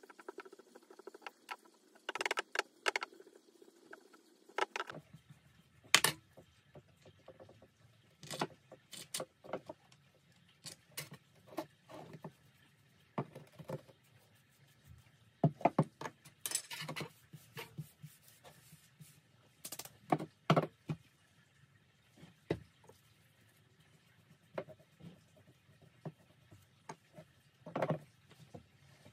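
Irregular small knocks, clicks and scrapes of a metal casting flask and hand tools being handled and set down on a stone worktop.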